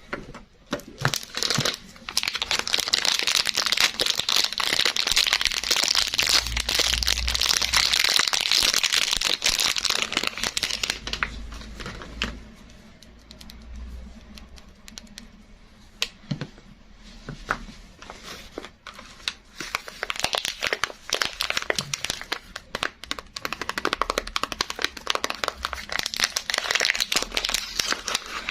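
Soap packaging being unwrapped by hand, crinkling and crackling for about ten seconds. A quieter spell of scattered light clicks and taps follows, then the crinkling picks up again near the end.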